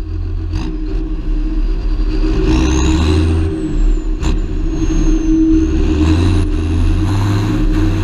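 John Deere 7530 Premium tractor's six-cylinder diesel engine running hard while hauling a trailer of maize along a road, getting louder over the first couple of seconds. A high whine rises and falls above the engine note from a few seconds in, and there are a couple of sharp knocks.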